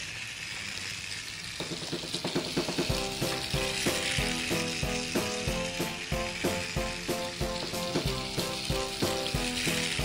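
Capsule Plarail motor car running the toy train round plastic track, with a steady crackling buzz and rattle. A light tune with a regular beat comes in about two seconds in.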